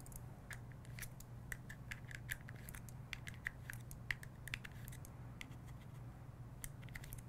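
Faint, irregular small clicks and scratches of a Mantis X sensor being handled and fitted onto the accessory rail of a Glock 19 pistol, over a low steady hum.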